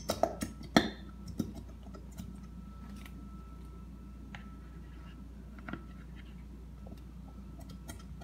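Plastic glue bottle being squeezed over a plastic bowl: a quick run of crackling clicks in the first second as the bottle is pressed and the glue sputters out, then only scattered faint ticks over a quiet room with a faint steady whine.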